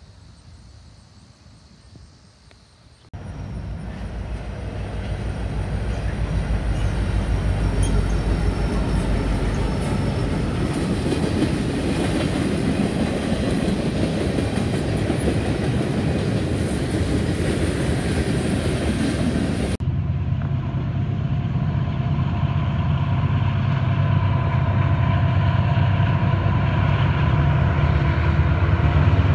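Norfolk Southern freight train with diesel locomotives approaching and passing, a loud rumble of engines and wheels on rail that cuts in suddenly about three seconds in and builds. About two-thirds of the way through, the sound changes abruptly to a heavier, deeper engine drone with a steady whine as the locomotives come alongside.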